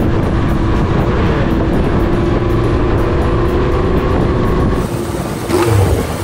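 Yamaha XJ550 inline-four running through a WRP Ikazuchi muffler, a loud, steady exhaust drone that eases off about five seconds in.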